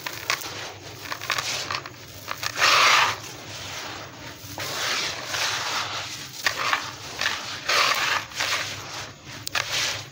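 Crumbly stone chunks crushed by hand, crunching and crackling as the grit and powder pour into a tub of water. It comes in several surges, the loudest about three seconds in.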